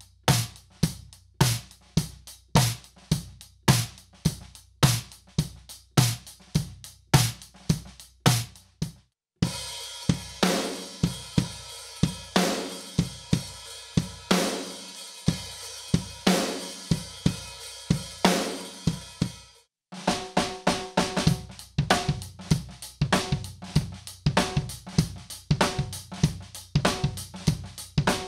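Drum kit groove: kick drum, hi-hat and cymbal played acoustically, with the snare hits layered with sampled sounds from a Roland TM-1 trigger module. The snare sound changes twice at abrupt cuts: first a fat snare, then a heavy rock snare with a long ringing wash between hits, then a hip-hop snare under a quicker, busier pattern.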